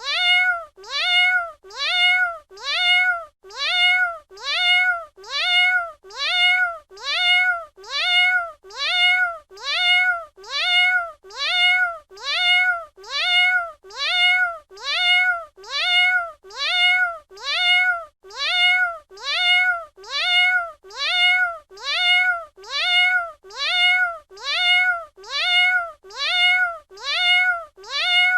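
A domestic cat's meow, the same short call repeated about once a second, each rising and then falling in pitch.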